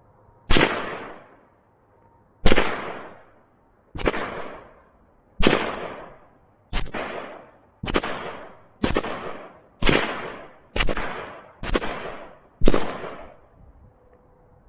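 Eleven gunshots fired one at a time at a target. The first few come about one and a half seconds apart, then they quicken to about one a second. Each crack is followed by a short echo tail.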